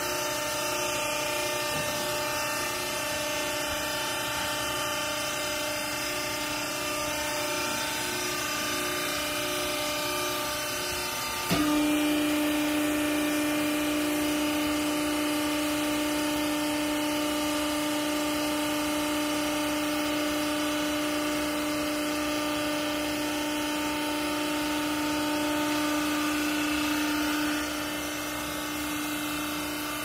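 Clothes baler machine running with a steady motor hum and whine. About 11 seconds in there is a click, and a louder, steady low hum sets in and holds until near the end, when it drops back to the quieter running sound.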